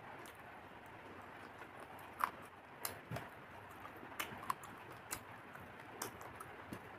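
A person eating close to the microphone: irregular small clicks and crunches of chewing and biting, a dozen or so at uneven spacing over a faint hiss.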